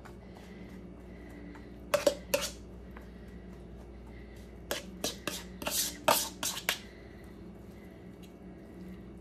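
Plastic spatula scraping and tapping against a plastic bowl as chopped green onions are scraped out onto a salad: two sharp scrapes about two seconds in, then a quick run of scrapes and taps in the middle, over a faint steady hum.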